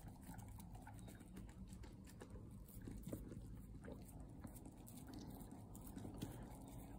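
A kelpie licking ice cream off a spoon: faint wet licks and small mouth clicks.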